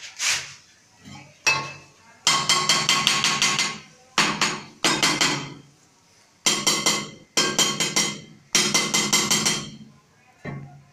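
Ceramic wall tile being tapped into its fresh mortar bed. Several bursts of quick taps, several a second, each with a slight ring.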